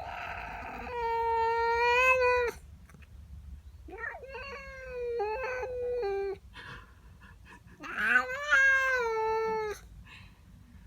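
Domestic cat caterwauling: three long, drawn-out yowls of steady pitch, each about two seconds long, with short pauses between them. It is a territorial cry, the cat being upset by a neighbour's cat in her garden.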